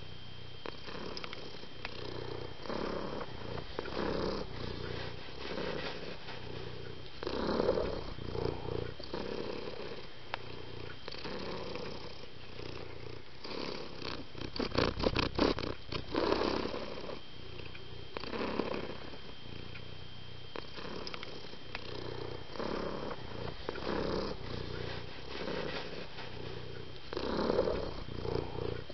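Domestic cat purring in a steady rhythm of breaths in and out, roughly one swell a second, with a louder fluttering stretch about halfway through.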